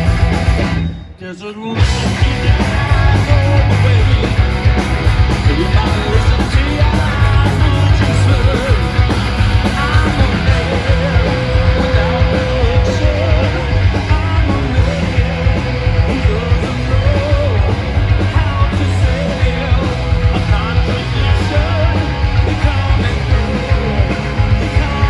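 Loud rock music with guitar and a singing voice. The sound drops out briefly about a second in, then the band comes back in.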